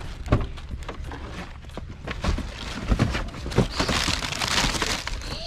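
Rustling of plastic garbage bags and trash, with scattered knocks, as rubbish is stuffed into a car's front seat; the rustling is loudest about four seconds in. A low wind rumble on the microphone lies underneath.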